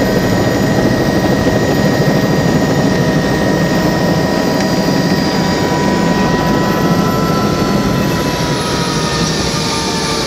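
Helicopter turbine engine and rotor heard from inside the cabin: a loud, steady rumble with a high turbine whine above it, as the helicopter lifts off. A few of the whine's tones dip slightly in pitch near the end.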